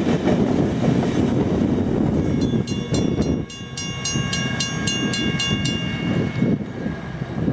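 Rumble and rail noise of the Rocky Mountaineer's passenger cars rolling past, dropping sharply about three and a half seconds in as the last car clears. A level-crossing signal bell rings in rapid strikes, about four a second, from about two and a half seconds in until near the end.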